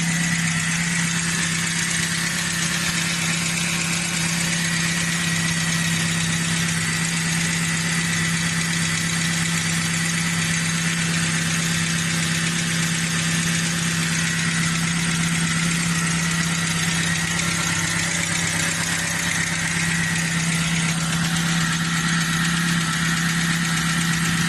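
Great Wall 1.5 VVT petrol engine idling steadily, with a faint high whine that comes and goes. The owner takes the extra noise for noisy tappets (hydraulic lifters), and also points to the alternator.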